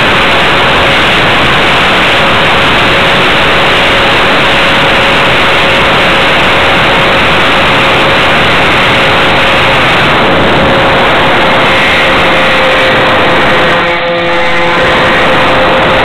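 Twin Emax CF2812 brushless electric motors and propellers of an RC plane running steadily in flight, picked up by the onboard camera as a loud rushing noise with a steady whine. The sound dips and wavers briefly near the end.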